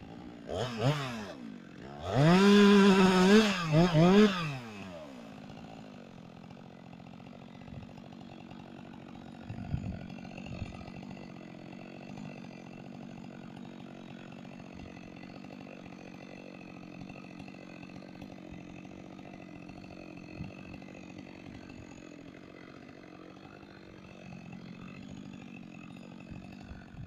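Chainsaw revved up twice in the first few seconds, its pitch rising and falling, then settling to a quiet, steady idle for the rest.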